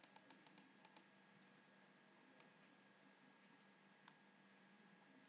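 Near silence: room tone with a handful of faint computer mouse clicks, most of them in the first second.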